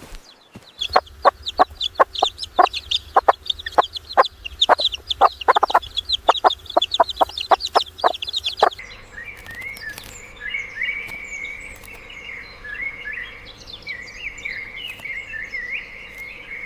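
Chickens clucking in a quick run of short, sharp calls. About halfway through, this cuts to a different clip of high-pitched bird chirping.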